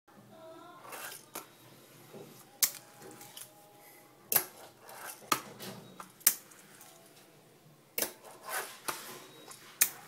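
Fingerboard tricks: the small wooden deck clacks sharply as it pops and lands on a hard surface, about seven times at uneven intervals, with the light rolling and scraping of its wheels in between.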